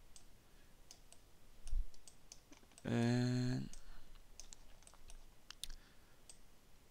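Computer mouse clicking, sparse and light, while nodes are dragged and wired in a 3D program. About three seconds in there is a short held hesitation hum in a man's voice, and a little before it a dull low bump.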